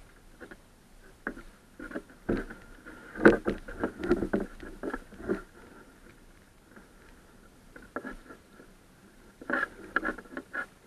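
Small waves slapping and splashing against a sailing kayak's hull as it moves under sail, in irregular knocks that cluster about two to five seconds in and again near the end.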